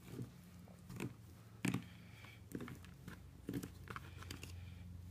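A coax cable prep tool's blade cutting the outer jacket off LMR-400 Ultraflex coax as the tool is twisted around the cable: a series of soft, irregular crunches and scrapes, about one a second, over a low hum.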